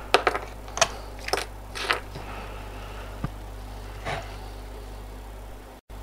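Green plastic plug-in terminal-block connectors being pulled off a transfer-switch module and set down on a wooden workbench. A quick run of sharp plastic clicks and clacks fills the first two seconds, followed by a couple of fainter taps, over a steady low hum.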